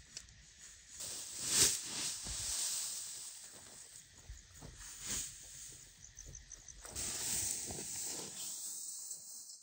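Freshly cut grass rustling and swishing as it is scooped and lifted with a wooden pitchfork, in several swells, fading out near the end.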